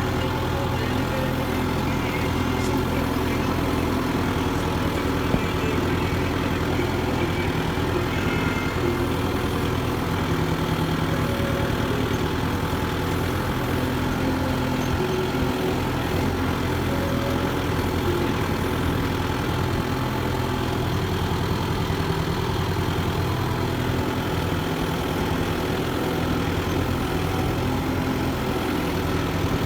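Kubota MU5501 tractor's four-cylinder diesel engine running steadily.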